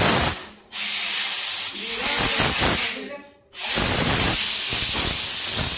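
Compressed air hissing from a blow gun as it blasts dust out of a motorcycle's pleated paper air filter element, in a few short bursts and then one long steady blast from about three and a half seconds in.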